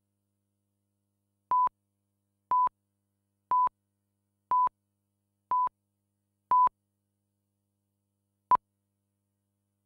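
Broadcast countdown clock's reference tone beeping: six short beeps of one steady pitch, one a second, then a gap and a single shorter pip near the end, the '2 pip' marking two seconds to programme start.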